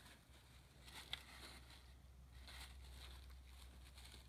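Faint rustling and a few light clicks of shipping packaging being handled while it is worked open, the sharpest click about a second in, over a low steady hum.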